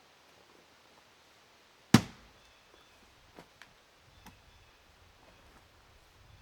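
A splitting axe strikes a firewood round once, about two seconds in, with a sharp crack, followed by a few faint knocks of wood.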